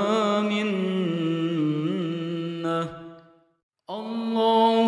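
A reciter's voice chanting an Arabic supplication (dua) in a slow, melodic style. A long wavering held note fades out about three seconds in, and after a brief silence the next phrase begins just before the end.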